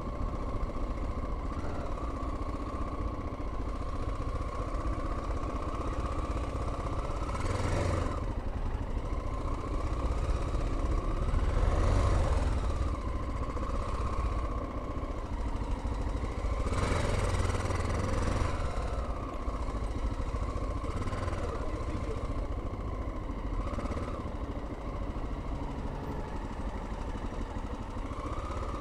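Honda XL600R's 589cc single-cylinder engine running at low speed while filtering through slow traffic, its note rising and getting louder several times as the throttle opens, then dropping back.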